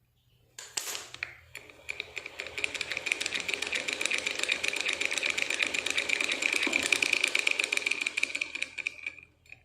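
Sewing machine running at speed for about seven seconds, a rapid ticking clatter with a steady high whine, after a brief start-up burst about a second in. Its upper gear is worn.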